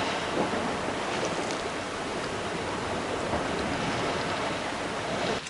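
Steady rush of sea waves washing against a rocky shore, cutting off suddenly near the end.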